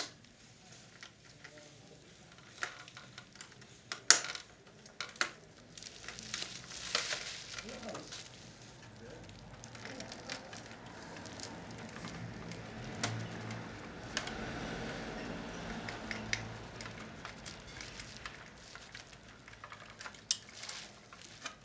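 Handling noise from working on an opened radio cassette recorder: scattered sharp clicks and knocks, the loudest about four seconds in, and a long stretch of rough scraping and rustling in the middle.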